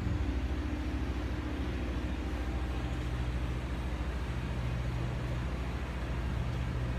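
Underbody-mounted Cummins Onan generator running at a steady speed just after being started, a constant low engine hum with a slight pulsing.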